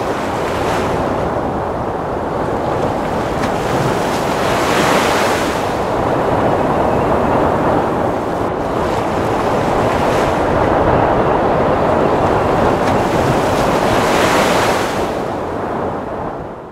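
Rough sea surf breaking on the shore: a steady wash of water with about four louder surges as waves break, and wind.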